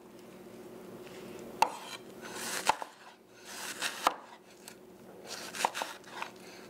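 Chef's knife chopping a red onion on a wooden cutting board: crisp slicing through the onion with a handful of sharp knocks of the blade on the board, spaced irregularly about a second apart.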